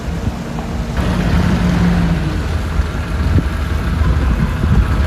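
Steady low rumble of a vehicle running, with wind on the microphone; it grows louder about a second in.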